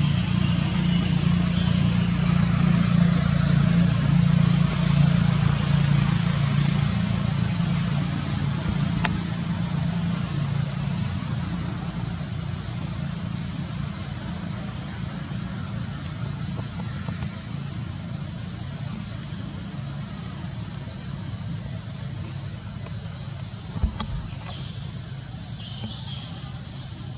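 A low motor hum, loudest at first and slowly fading, under a steady high-pitched buzz, with a single sharp knock near the end.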